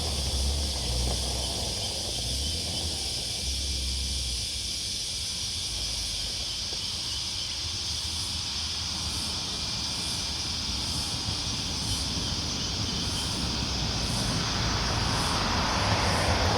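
Rural roadside ambience: a steady high insect drone with faint chirps about twice a second. A vehicle's low rumble fades out in the first few seconds, and another engine grows louder near the end.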